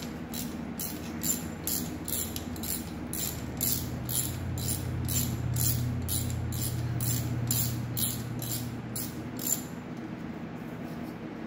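Socket ratchet clicking in quick, even back-and-forth strokes, about two and a half a second, as it runs a manifold nut off a stud on a Triumph TR6 engine; the clicking stops near the end.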